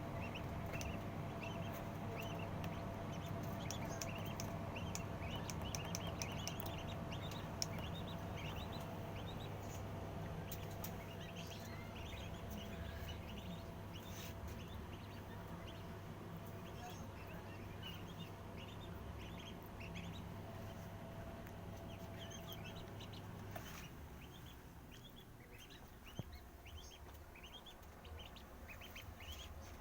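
Newly hatched poultry chicks peeping: many short, high chirps throughout, over a steady low hum that stops about three quarters of the way in.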